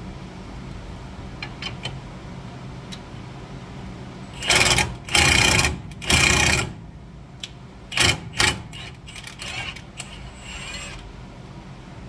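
Impact wrench running in short hammering bursts, three of about half a second each, then two brief blips, driving a lug nut against a bearing-and-cup stud installer to pull a wheel stud into the rear hub.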